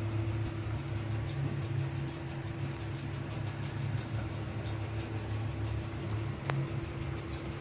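Steady low machine hum with a faint even ticking, about two or three ticks a second, and a single sharp click near the end.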